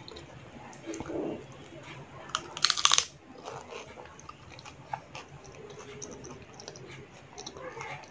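Eating a dahi puchka, a crisp puri shell filled with curd: a crunchy bite about two and a half seconds in, with quieter chewing and small mouth clicks around it.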